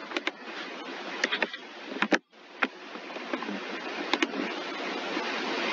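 Computer mouse clicking, several times and often in quick pairs, over a steady microphone hiss that slowly grows louder.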